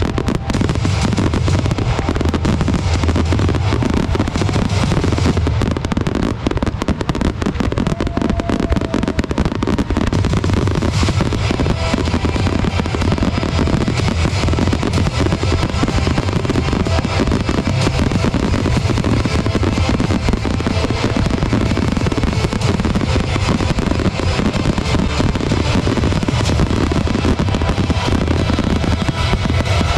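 Professional aerial fireworks bursting in a dense, continuous barrage, the reports following one another so rapidly that they run together without a break.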